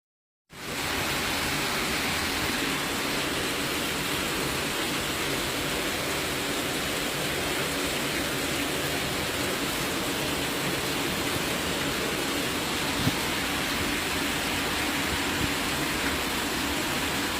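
Torrential rain pouring down in a steady, dense hiss that begins about half a second in.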